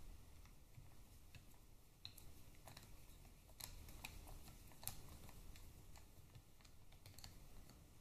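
Faint, irregular small metallic clicks of a Torx screwdriver working the screws out of the retaining plate behind the cam gears on a Harley-Davidson Twin Cam 88 cam plate, with the loudest click about five seconds in.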